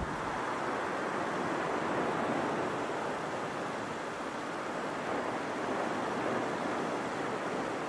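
Steady rushing noise from the erupting La Palma volcano's fissure vent as it throws up lava fountains and jets of gas.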